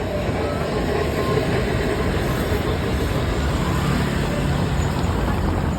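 Steady noise of a vehicle in motion: a constant low rumble under an even hiss, with no clear events.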